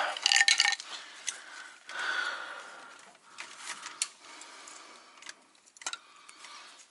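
Scattered clicks and light knocks of hand work on a truck's air-line fittings and hose, with a cluster of clicks at the start and a short rushing noise about two seconds in.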